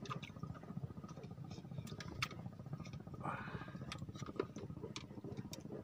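Scattered, irregular light clicks and taps from fishing rods and a spinning reel being handled on a wooden raft, over a low steady rumble.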